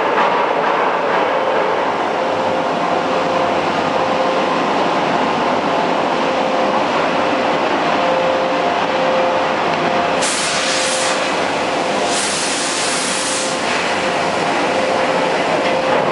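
Steady, loud machinery din from a 10-ton fully hydraulic closed die forging hammer and its hydraulic system running between blows, with a faint steady hum and no hammer strikes. Two bursts of hissing come about two-thirds of the way through, the second one longer.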